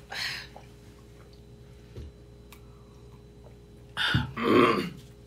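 A person's breathing: a short exhale at the start, a soft knock about two seconds in, then a loud breathy exhale and a rougher voiced sigh near the end, as someone cools a mouth burning from Carolina Reaper chili.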